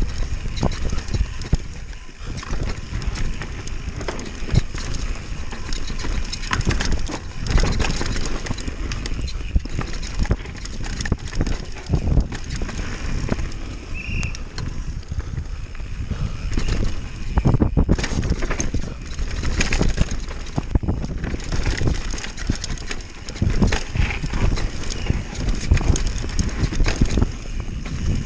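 Downhill mountain bike going fast over a rough dirt trail: a continuous clatter of knocks and rattles from the tyres, chain and suspension hitting roots and rocks.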